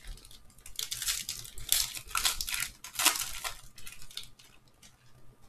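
A foil-wrapped 2015 Panini Prizm football card pack being pulled from its box and torn open, the wrapper crinkling and crackling irregularly, loudest from about one to four seconds in and dying away near the end.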